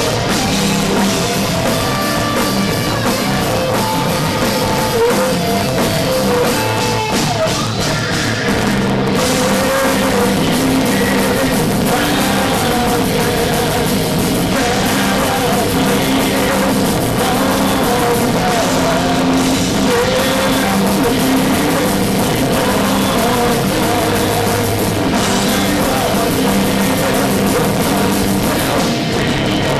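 Heavy metal band playing live at full volume: distorted electric guitars, bass and a drum kit, recorded from the crowd.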